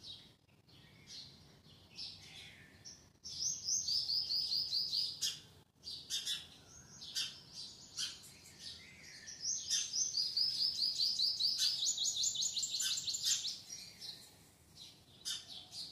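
Small birds chirping, with scattered single high chirps and two long, quick runs of repeated chirps, one about three seconds in and a longer one from about nine and a half seconds in.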